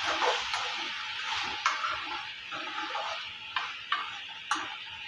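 Diced ridge gourd being stirred with a spatula in a hot pan: the pieces sizzle while the spatula scrapes and clicks against the pan about once a second.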